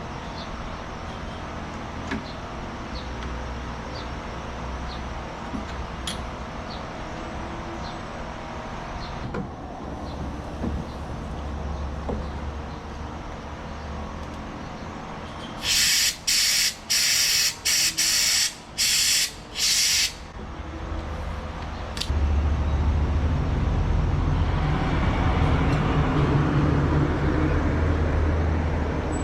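A vehicle engine running steadily at a low rumble, with light ticks. About halfway through come six or seven short, loud hisses in quick succession, and a few seconds later a louder, deeper running sound sets in and holds.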